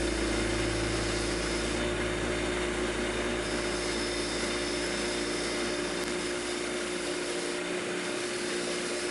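Bench grinder wheel running steadily while a small knurled steel part is held against it, brushing rust off the metal.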